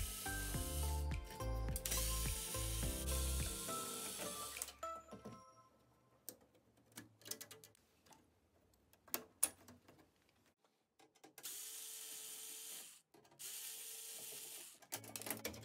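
Corded electric screwdriver running in short bursts as it drives screws out of a stereo's metal rear panel: two runs in the first few seconds and two more near the end. In between come scattered clicks and rattles of circuit boards and plastic parts being handled. Background music with a bass line plays under the first few seconds.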